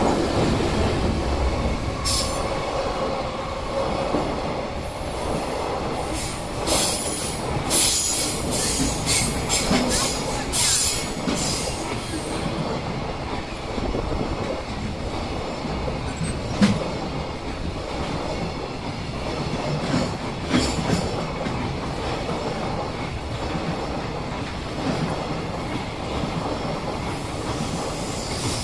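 Freight train hauled by a JR Freight EF210 electric locomotive rolling past on the rails, a continuous rumble with the wagons' wheels clattering. Sharp high-pitched wheel squeals stand out from about six to twelve seconds in.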